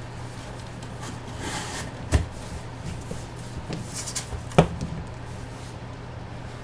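Trading cards being handled on a table: soft rustling and two sharp knocks, the louder about four and a half seconds in, over a steady low hum.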